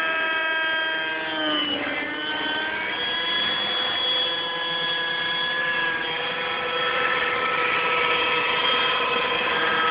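Align T-Rex radio-controlled model helicopter in flight: a steady high whine of motor and rotor. Its pitch dips briefly about a second and a half in, then recovers.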